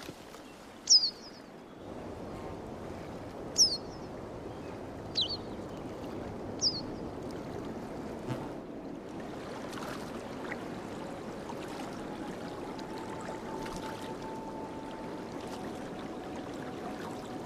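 A bird gives four short, sharp, downward-sliding calls over the first seven seconds, over a steady rush of water. From about twelve seconds in, soft held music tones come in.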